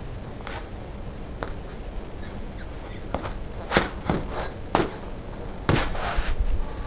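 Freestyle footbag play on a concrete sidewalk: soft taps of the bag against sneakers and shoe scuffs. A few scattered taps come early, several follow in quick succession from about halfway, and a longer scuffing burst comes near the end.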